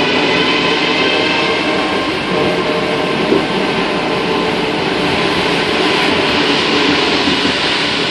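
Cabin noise inside a rubber-tyred MP05 Paris Métro train running through a tunnel: a loud, steady rolling rumble and hiss with faint steady tones underneath.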